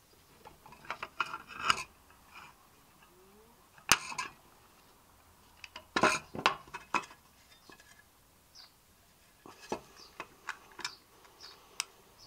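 Light metallic clinks and taps from a handmade aluminium mess-kit lid and its riveted metal ring handle being handled on a wooden table, in scattered clusters, with one sharp knock about four seconds in.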